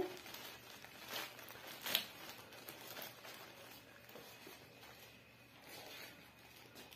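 Faint rustling of dry corn husks and wet squishing of grated-corn batter as husks are filled from a plastic cup, with a few soft clicks, the clearest about two seconds in.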